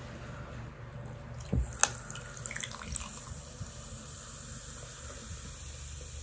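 Cola poured from a plastic bottle over ice in a paper cup, fizzing and foaming up as it fills. A few sharp clicks come around two seconds in, before the steady pouring and fizzing.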